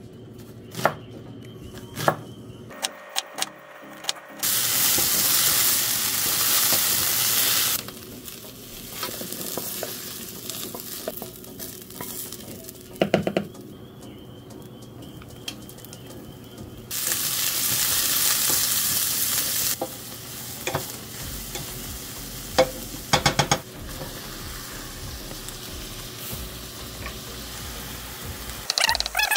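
A few knife chops through an onion on a cutting board, then food sizzling in hot oil in a stainless frying pan, stirred with a wooden spatula. Two loud stretches of sizzling, each about three seconds long, stand out from a quieter steady sizzle.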